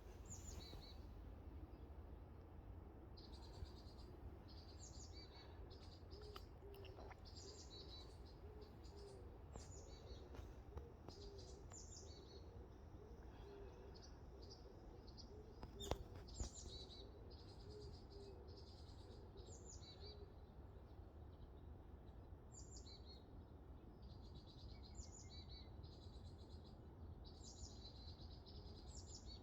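Small forest birds singing faintly: short high-pitched songs repeated every second or two, each opening with a quick falling note. Under them runs a low steady rumble, with two sharp clicks about halfway through.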